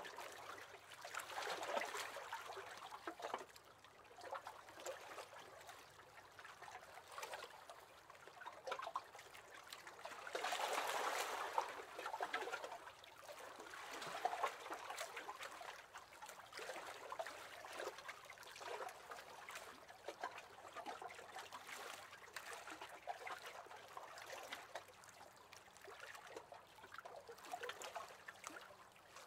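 Small waves lapping and splashing against the hull of a wooden rowing boat, quiet and irregular, with a fuller swell of water near the middle.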